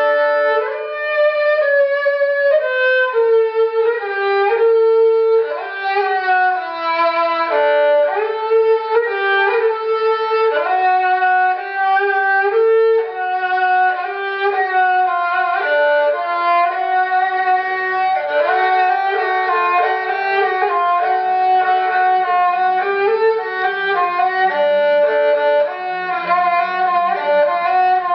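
New Politiki lyra (klasik kemençe), with a maple body and cedar soundboard, being bowed through a melody in a sound test. It plays a run of changing notes, some held, with lower notes sounding together with the melody in the second half.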